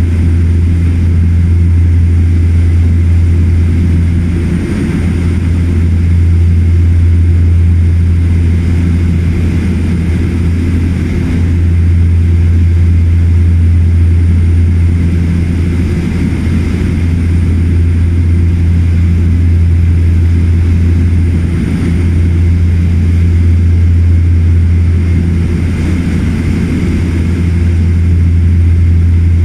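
Steady drone of a de Havilland Canada Twin Otter's two PT6A turboprop engines and propellers in flight, heard from inside the cabin. The loud, low hum swells and fades slowly every few seconds.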